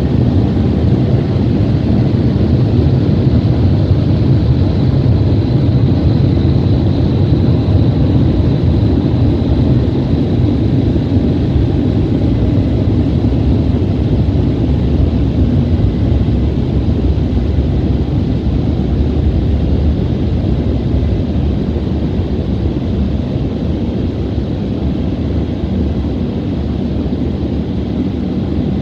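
Car wash dryer blowers running, a loud steady roar of air heard from inside the car, easing off slightly towards the end.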